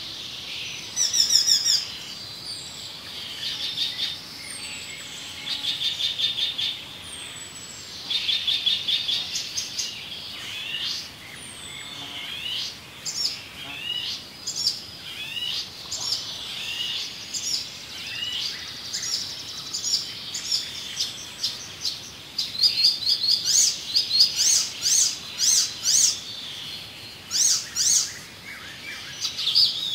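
Songbirds chirping and singing: fast rattling trills, many short chirps and a few high falling whistles, overlapping and busiest in the second half.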